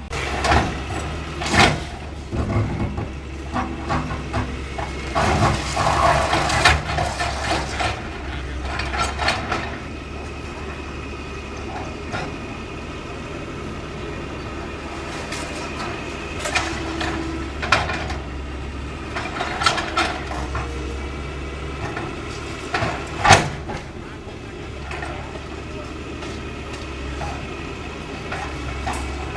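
Caterpillar 325L hydraulic excavator running steadily while demolishing a building, with repeated knocks and crashes of breaking debris and some squealing and scraping. The loudest crash comes about three-quarters of the way through.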